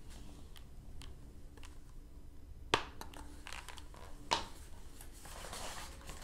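Pages of a large picture book being turned and handled: two short sharp taps, about three and four seconds in, then a soft paper rustle.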